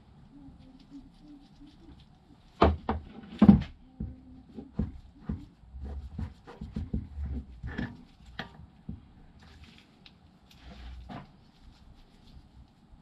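Knocks and clinks of metal motorcycle suspension parts and tools being handled and tapped. The loudest is a cluster of sharp knocks about three seconds in, followed by lighter, irregular taps and clatter.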